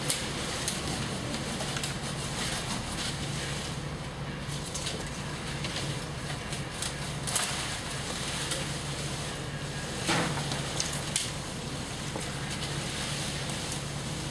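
Leaves and twigs rustling and crackling as a climber works in an avocado tree, with a few sharp snaps scattered through, over a steady low hum.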